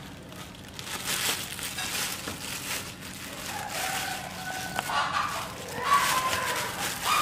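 Thin plastic bag crinkling and rustling in irregular bursts as a baby macaque tugs and pulls at it. From about halfway, chickens call in the background.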